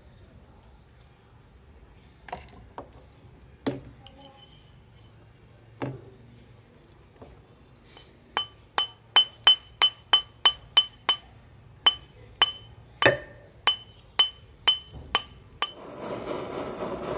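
A few scattered clicks, then from about halfway a run of sharp metallic taps, about two a second, each ringing with the same bright tone: steel striking the steel mandrel on which the silver wire is being shaped. About a second before the end, a gas torch flame starts with a steady hiss.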